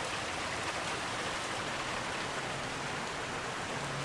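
Heavy rain falling steadily in a summer thunderstorm, the hail having died out.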